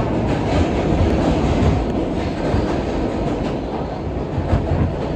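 R160B subway car running at speed between stations, heard from inside the car: a steady rumble of steel wheels on rail with rail-joint clicks.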